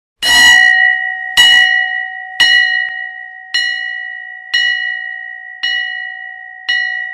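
A bell struck seven times, about once a second, each strike ringing on. The first strike is the loudest.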